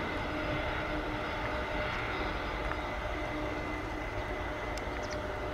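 Boeing 767 jet engines running steadily at low power as the airliner taxis: an even rumble with a few faint, held whining tones.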